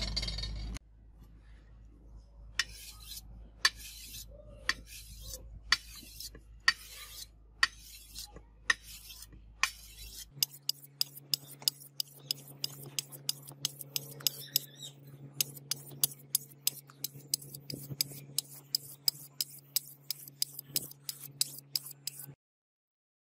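A hand-held sharpening stone stroked along the edge of a steel sword blade in a series of short scraping strokes. They quicken to about three a second after about ten seconds.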